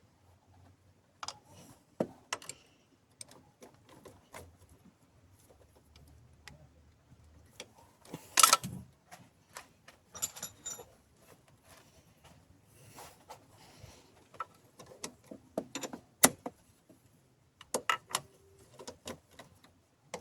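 Hand tools clinking and clicking on metal while the bolts holding a BMW E36 power steering reservoir are undone: scattered sharp metallic clicks and knocks, the loudest about eight and sixteen seconds in.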